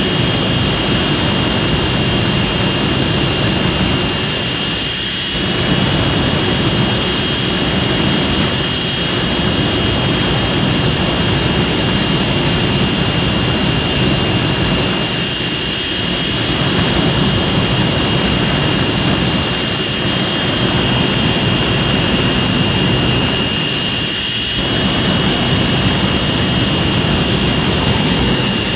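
Jet engine running steadily, its exhaust flame blasting into a burning pickup truck: a loud, even rush with steady high whining tones held over it.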